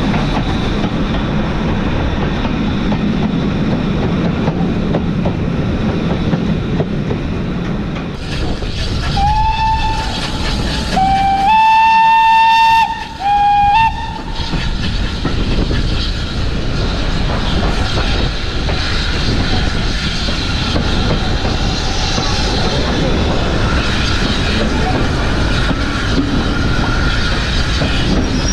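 Steam train running, with steady rumble and rail clatter. About nine seconds in, the locomotive's whistle sounds three blasts, a short one, a long one and a short one.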